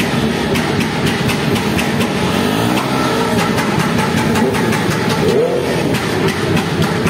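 Several motorcycle engines running and being revved, their pitch rising and falling over one another.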